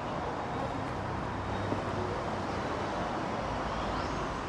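Steady road traffic noise: a continuous wash of vehicle sound with a low hum underneath.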